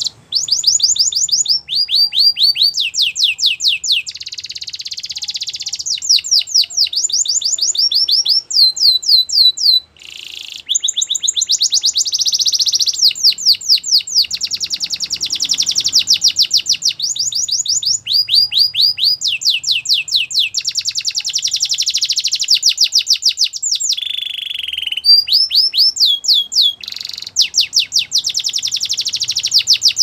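Canary singing a continuous song: long trills of quickly repeated down-slurred notes alternating with buzzy rolls, with a short pause about ten seconds in.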